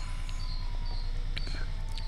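Background noise: a steady low hum, with faint short high chirps now and then and a few faint clicks.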